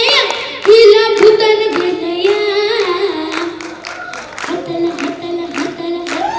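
A young girl singing a melody into a microphone, holding and bending long notes, over a steady beat of sharp claps.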